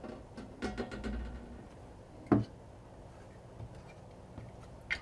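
Handling noise from the amplifier module's circuit board being lifted out of its housing: a few faint clicks, then one sharp knock about two seconds in.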